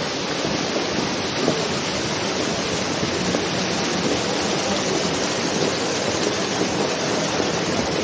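Sulphur hot spring water cascading over rocks into a pool: a steady, even rush of falling water.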